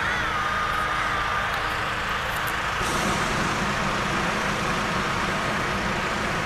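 Hot air balloon's propane burner firing overhead: a steady roar that grows heavier about three seconds in. A faint high tone falls and holds briefly in the first second and a half.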